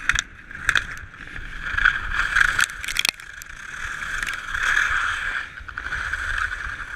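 Slalom skis carving and scraping on firm summer snow, with sharp clacks of gate poles being struck, two near the start and two more around three seconds in. After that only the steady scraping hiss of the ski edges continues.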